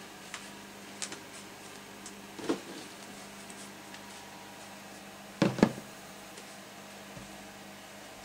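Containers and lids being handled and set down: a few light knocks, with a louder double knock about five and a half seconds in.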